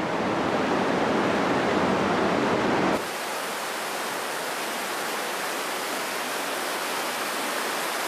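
Steady rush of water from an underground river inside a cave. About three seconds in the sound cuts abruptly to a thinner, quieter hiss.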